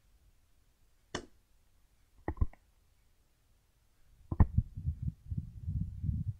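A sharp click about a second in, then a quick pair of clicks. About four seconds in comes a knock, followed by a couple of seconds of irregular low bumping and rumbling close to the microphone.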